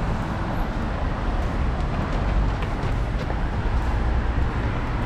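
Road traffic going by on a city street, a steady rumble.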